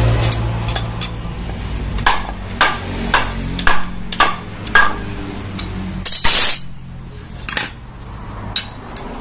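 A hammer strikes metal CVT parts of a Honda Vario 150 about twice a second, six ringing blows, as the assembly is knocked apart. A steady low hum runs underneath. A short hissing burst comes a little past halfway, followed by two more single knocks.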